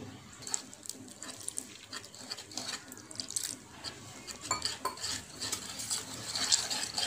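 Wire whisk beating gram-flour batter in a bowl: irregular clicks and scrapes of the wires against the bowl, getting busier near the end, as water is worked into the batter.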